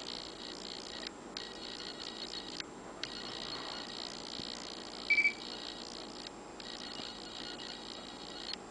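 CMI SaveTime time clock terminal giving a short double electronic beep about five seconds in, while running its memory self-test. A steady high hiss runs underneath and breaks off briefly a few times.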